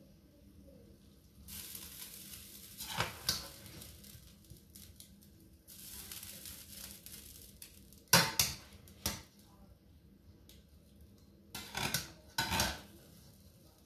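Metal spaghetti server clinking and scraping against a stainless steel pot as spaghetti is lifted onto a plate: several sharp clinks, with a soft hiss in between.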